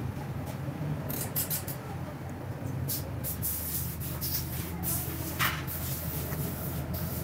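Scattered light metallic clicks and taps as a Honda CD 70's clutch worm and clutch lever arm are handled and fitted into the clutch cover, over a steady low hum.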